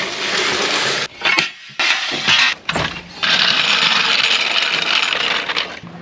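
Metal rattling and clunking in long stretches, with separate sharp knocks between them, as a GMC pickup's drive shaft is shaken and turned by hand to check the universal joints for play; the turning shows a lot of slack at the rear axle.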